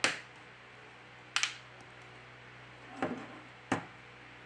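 Four short clicks and light knocks, spaced over a few seconds: a reassembled BQ Aquaris C smartphone being handled and turned over on a table.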